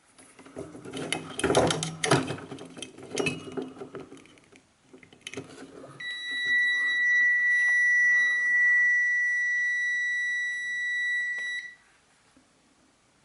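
A few seconds of clattering as multimeter test leads are handled on the compressor relay terminals. About six seconds in, the multimeter's continuity beeper starts one steady high beep lasting nearly six seconds, showing a continuous path through the compressor's run winding, which reads about 25 ohms, a good reading.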